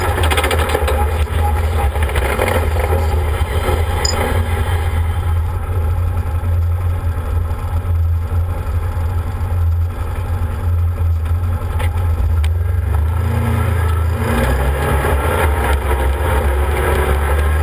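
Arctic Cat Wildcat 1000 UTV's V-twin engine running steadily under way, heard from the open cab, with a heavy low rumble of wind on the microphone. The pitch rises in the last few seconds as the engine revs up.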